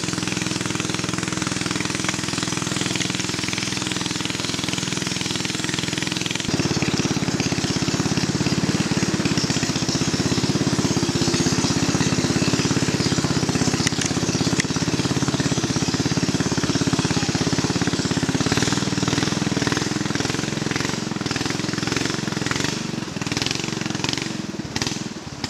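A boat's engine running steadily under way; about six seconds in it speeds up and gets louder, and later its pitch wavers up and down.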